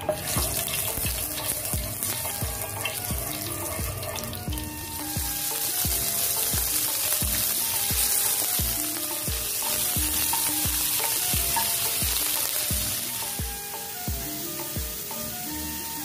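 Diced pork sizzling as it fries in hot oil in a nonstick pan. The sizzle grows louder about five seconds in and eases a couple of seconds before the end. Background music with a steady beat plays throughout.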